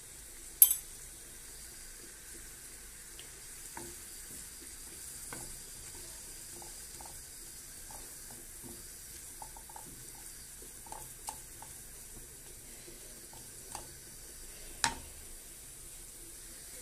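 Onions and flour sizzling in fat in a non-stick frying pan as they are stirred with a wooden spoon, the flour cooking into a roux for béchamel sauce. Small scraping ticks from the spoon run throughout, with a few sharp knocks of the spoon on the pan, the loudest just under a second in and another near the end.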